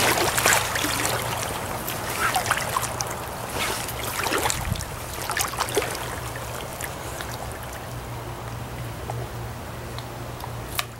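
Shallow stream water running and trickling, with frequent small splashes and drips. It is a little louder in the first couple of seconds.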